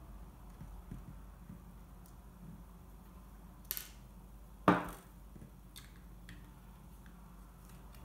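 Small handling sounds of taking screws out of a laptop hard-drive bracket: a light tick a little past the middle, then one sharp knock with a short ring as a screw and a screwdriver are set down on a wooden tabletop.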